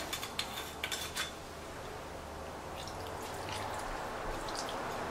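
A few light clicks as the cap comes off a glass bottle of Shaoxing cooking wine, then the wine pouring in a steady splashing stream onto raw chicken wings in a stainless steel bowl, growing slightly louder as it goes.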